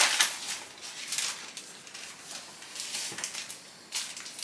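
Rustling of a clear plastic sleeve and paper sheets being handled, in irregular bursts, loudest at the start.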